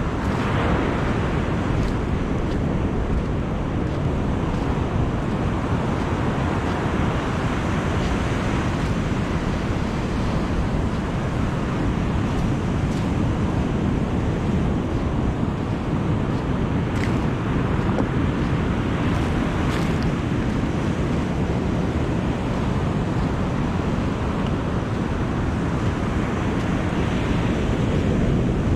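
Surf breaking and washing up the beach as a steady rushing noise, with wind buffeting the microphone.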